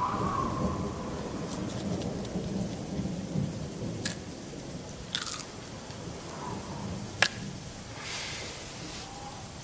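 Thunderstorm: a steady low rumble of thunder with rain, and a few sharp cracks, the loudest about seven seconds in.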